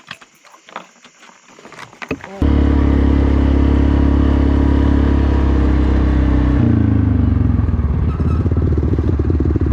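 A few light clicks and knocks, then about two and a half seconds in a quad (ATV) engine starts abruptly and runs loud and steady. Around seven seconds in it drops to a lower, pulsing beat like an idle.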